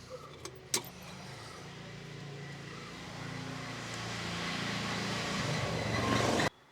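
Engine oil being poured into a diesel engine's oil filler: a steady rushing, gurgling pour that grows louder and stops suddenly near the end. A couple of sharp clicks come just before the pour.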